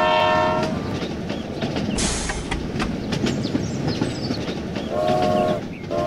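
Train horn blowing a short chord at the start and again near the end, over the steady rattling clatter of a train running on rails.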